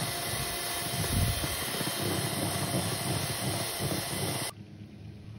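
Electric hand mixer running at speed, its beaters whipping thick sponge-cake batter in a stainless steel bowl. The sound cuts off suddenly about four and a half seconds in.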